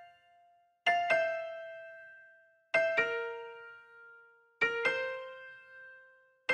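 Background music: gentle piano-like keyboard chords, struck in pairs of quick notes about every two seconds, each ringing out and fading before the next.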